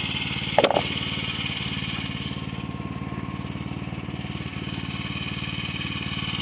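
Small gas engine of a Woodland Mills HM122 portable band sawmill running steadily under load as the band blade saws through a log. There is a short sharp knock about half a second in.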